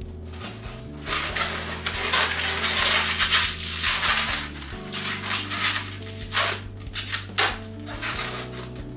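Latex twisting balloon being handled and twisted by hand, rubbing and squeaking. The rubbing is dense for the first few seconds, then comes in short bursts, over steady background music.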